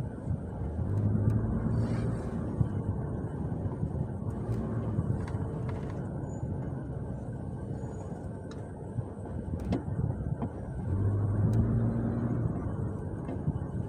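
Car engine and road noise heard from inside the cabin while driving slowly in city traffic, the engine hum swelling twice, about a second in and again near eleven seconds, with a few light clicks.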